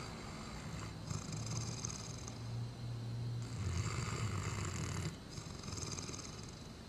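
Great Dane snoring: one long, low snore from about a second in until about five seconds, then quieter breathing.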